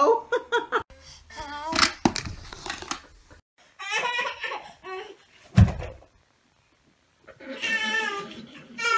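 A baby's babbling and laughing voices, with one loud, dull thump a little past halfway. After a second of quiet, a baby's voice starts up again near the end.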